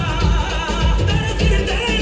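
Loud Punjabi dance song with a steady heavy bass beat and a singing voice, played over a stage sound system.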